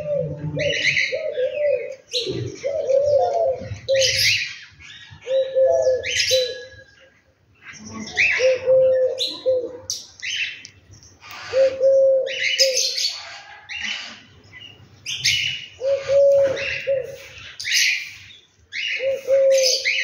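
House sparrows chirping constantly, with a dove cooing in low phrases of several notes that come back every three to four seconds.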